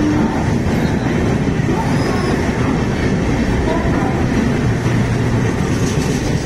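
Passenger coaches of an Indian express train running past a station platform: a steady, loud rumble of the wheels on the rails.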